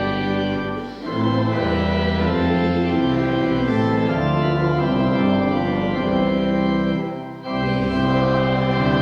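Organ music: full held chords that change every second or so, with two brief breaks between phrases, about a second in and again near the end.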